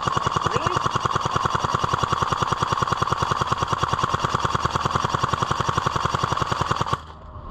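Stock CZ Scorpion Evo airsoft electric gun firing one long full-auto burst: a rapid, even clatter of the gearbox cycling over a steady motor whine, cutting off suddenly about seven seconds in.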